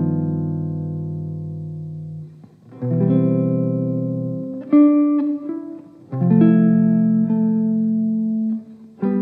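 Background music: guitar chords plucked and left to ring, a new chord every one and a half to three seconds.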